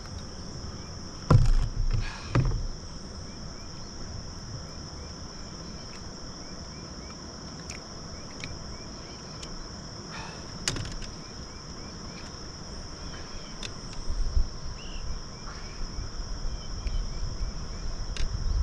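Steady high insect chorus, crickets or similar, with a few sharp knocks about a second in, again a second later, and about ten seconds in.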